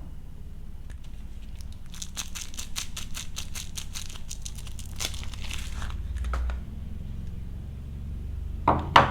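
Wrapping on a bar of soap being torn open and crinkled, a quick run of crackles lasting a few seconds, with a sharp knock near the end.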